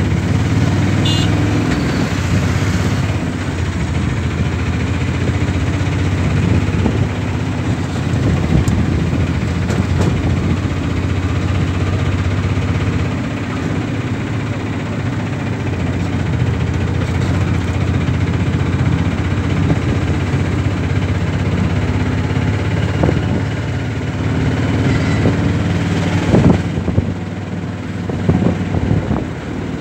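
Auto-rickshaw's small engine running steadily while the vehicle drives along a road, heard from inside the open cab with road and traffic noise.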